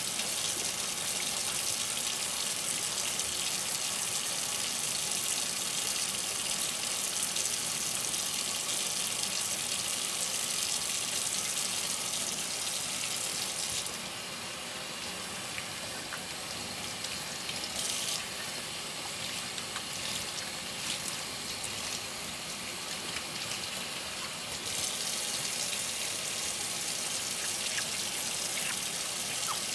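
Kitchen tap running steadily into a sink while dishes are washed by hand. The flow goes quieter for about ten seconds in the middle, then comes back up.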